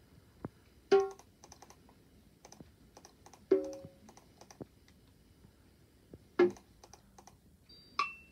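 Light clicking on a laptop as videos are switched, with four short, loud tonal blips of audio from the laptop's speaker, about two and a half seconds apart.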